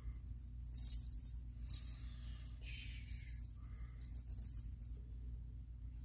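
Rattlesnake shaking its tail rattle, a dry high buzz that comes and goes in bursts, strongest in the first three seconds: the snake's defensive warning while it is being handled.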